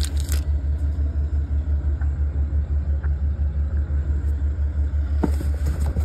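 An engine idling with a steady low throb that pulses about six or seven times a second, with a few light clicks near the end.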